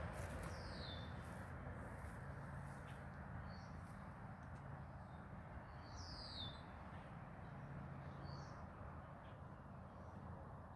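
Faint bird calls: two slurred high notes falling in pitch, about five seconds apart, with a few short chirps in between, over a low steady outdoor background.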